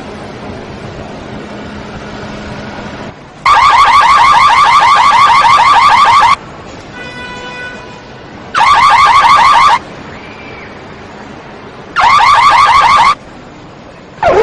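Car alarm siren sounding in loud bursts of rapid warbling chirps. It starts a few seconds in, with a long burst and then two short ones. A fainter steady beep comes between the first two bursts.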